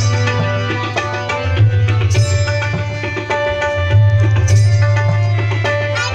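Instrumental Indian music with tabla drumming over sustained melodic instruments and a deep steady bass tone, with no singing.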